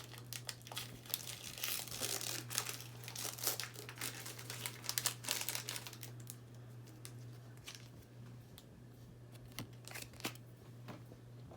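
Trading card pack wrapper crinkling and tearing as it is pulled open and handled, busy and crackly for the first half, then thinning to a few sparse rustles.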